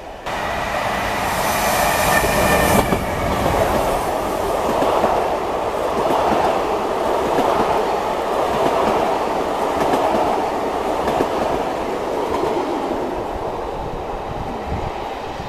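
Double-deck commuter train running past along the platform: a steady loud rush and rumble of wheels on the rails, with a thin high squeal in the first few seconds that eases off slightly toward the end.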